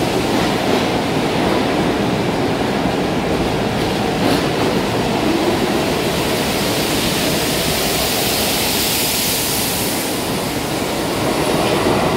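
An R46 subway train passes through an underground station platform without stopping and runs on down the tunnel. It makes a steady, loud train noise of wheels on rails, with a hiss that grows stronger about two-thirds of the way through.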